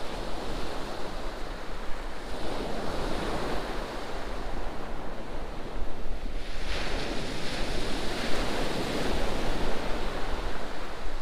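Sea waves breaking and washing on a shingle beach, the surf swelling about two seconds in and again past the middle, with wind rumbling on the microphone.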